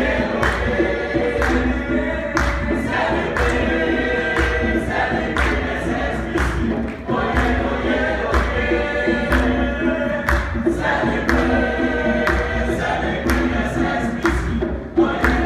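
A group of voices singing together in church, gospel style, with steady rhythmic hand-clapping at about two claps a second.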